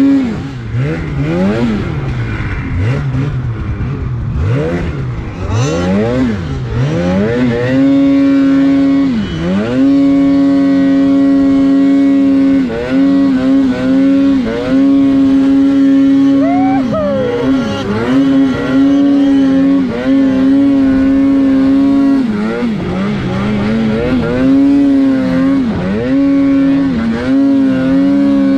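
Polaris RMK mountain snowmobile's two-stroke engine, heard from the sled. The throttle is blipped up and down repeatedly for the first several seconds, then held wide open at a steady high pitch, dipping briefly several times, as the sled climbs through deep powder.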